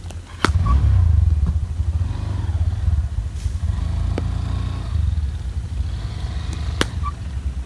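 Cricket bat striking the ball with a sharp crack just after the start and again near the end, with a fainter knock in between, over a steady low rumble.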